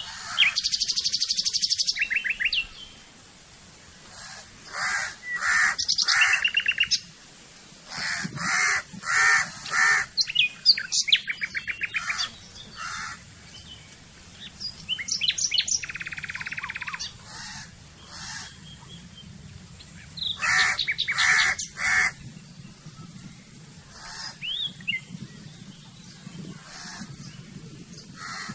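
Several kinds of birds calling one after another: chirps and fast trills, with groups of three or four short harsh calls.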